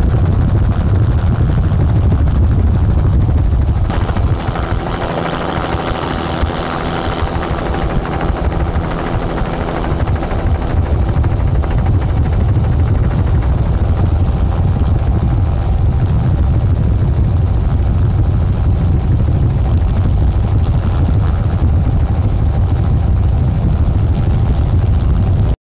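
Helicopter rotor and engine noise, running steadily with a heavy low beat and a high hiss. About four seconds in the low end eases and a fainter steady drone is heard for several seconds before the full noise returns.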